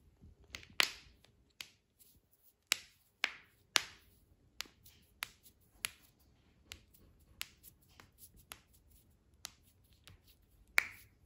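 Human joints cracking: a series of about fifteen sharp, separate pops at irregular intervals, some only a fraction of a second apart, the loudest about a second in and near the end.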